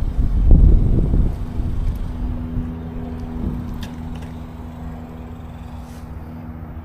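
Steady low engine hum of nearby road traffic, with a heavier low rumble lasting about a second near the start.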